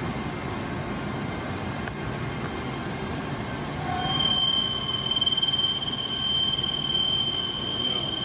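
Steady hum of running industrial machinery with a single click about two seconds in; about four seconds in it grows a little louder and a steady high-pitched whine sets in and holds.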